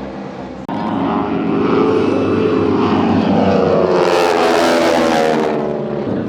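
North American AT-6 Texan warbirds' nine-cylinder radial engines droning as the planes fly past in formation, with a sudden break about a second in and a brief rush of higher-pitched noise later on.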